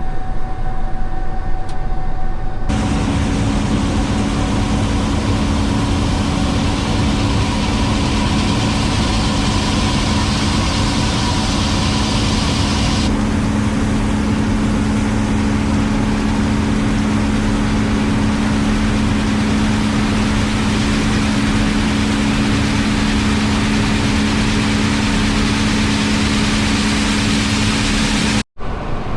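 Gleaner S77 combine running steadily under harvest load in corn: a dense, even machine rush over a steady low hum. The sound changes abruptly about three seconds in and drops out for a moment near the end.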